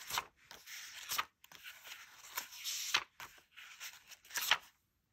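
Pages of a small paperback guidebook being flipped through by hand: a run of short paper swishes and flicks, the loudest about four and a half seconds in.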